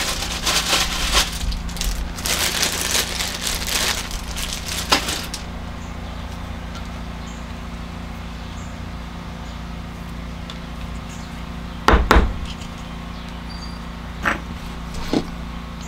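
Rustling and scraping of objects being handled and rummaged through for about the first five seconds. A steady low hum follows, with a single sharp knock about twelve seconds in and a couple of light clicks near the end.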